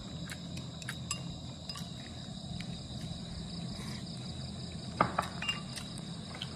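A man chewing food, with small wet mouth clicks, over a steady high trill of crickets. About five seconds in comes a sharp clink, then a smaller one.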